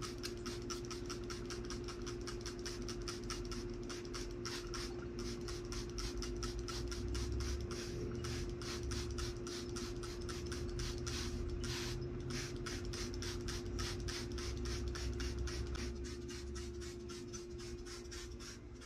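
Hand-held trigger spray bottle pumped over and over, misting water onto seed-starting trays: a quick, even train of short spritzes, several a second, with a steady hum underneath.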